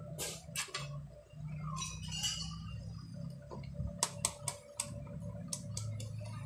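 Clicks of a digital multimeter's rotary selector dial being turned: a few near the start, then a quick run of clicks about four seconds in. A low steady hum runs underneath.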